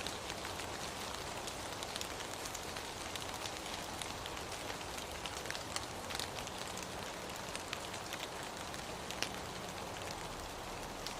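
Steady rain falling, an even hiss scattered with many sharp ticks of individual drops hitting a surface.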